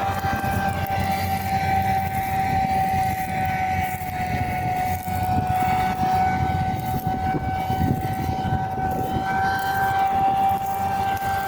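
Farm machinery running steadily: a constant high-pitched whine over a low, rumbling engine noise.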